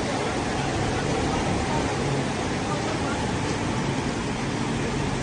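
Steady hiss of heavy rain over a flooded street, with faint distant voices of men.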